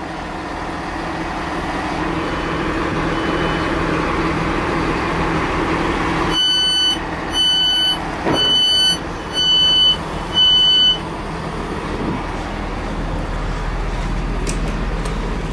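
Northern diesel multiple unit's engine running at the platform, with the train's door warning beeping five times, about once a second, near the middle.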